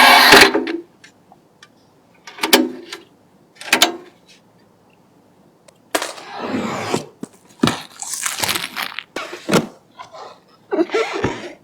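A series of short rustling and knocking handling noises with brief pauses between them, as PC parts and their packaging are handled. The longest stretches of rustling come about six seconds in and again about eight seconds in.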